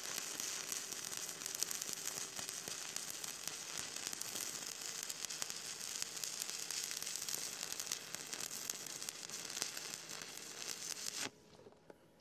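Stick-welding arc crackling steadily as a rod runs a bead on a thick steel wear plate. It cuts off abruptly about a second before the end when the arc is broken.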